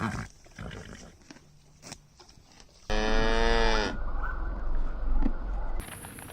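A cow mooing once: a loud, drawn-out call of about a second, starting about three seconds in, after a few faint quieter sounds.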